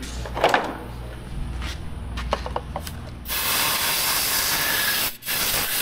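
A few light clicks and knocks, then a steady hissing spray starting a little after three seconds in, which cuts off sharply near the end and gives one more short burst.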